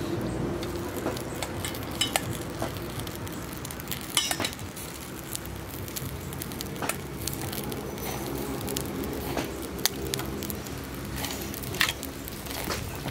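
Marinated whole rats sizzling on a wire grill over charcoal. Metal tongs click against the grate now and then.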